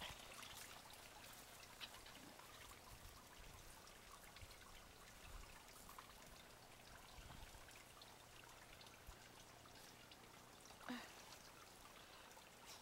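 Near silence: faint outdoor background with a few soft clicks and one brief soft sound near the end.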